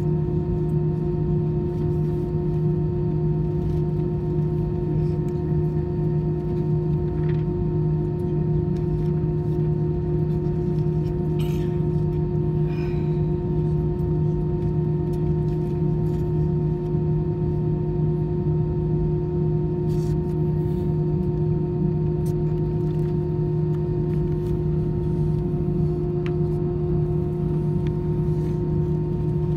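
Airbus A319 jet engines idling, heard inside the cabin over the wing as a steady drone with several held tones. A few faint clicks come through from the cabin.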